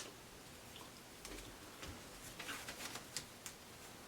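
Faint rustling and a few light clicks of dogwood twigs being bent, wrapped and tucked into a ring.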